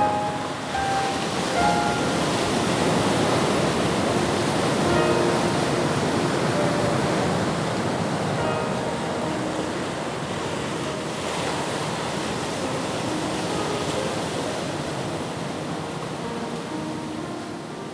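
Waves washing onto a shore, a steady rush of surf that swells over the first few seconds and slowly ebbs toward the end. Soft background music with scattered sustained notes plays over it.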